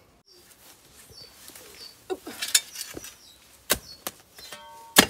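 Spade chopping into the soil and roots of a bamboo clump: three sharp strikes about a second apart, the loudest near the end, with small birds chirping faintly.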